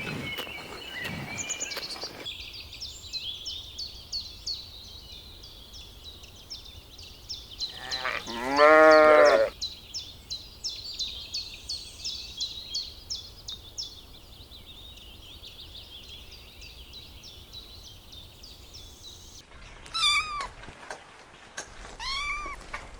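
A single loud, wavering bleat about eight seconds in, over fast, high chirping that runs most of the time. Near the end come two short cat meows.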